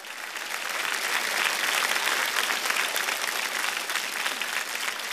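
Studio audience applauding, swelling over the first second and then holding steady.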